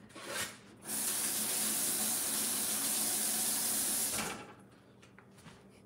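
Kitchen tap running in a steady stream for about three seconds, then shut off.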